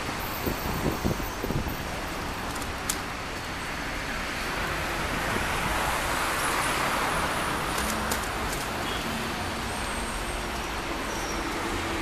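Street traffic noise from a city avenue, a steady hiss of passing cars that swells as a vehicle goes by mid-way, with a few dull low thumps about a second in.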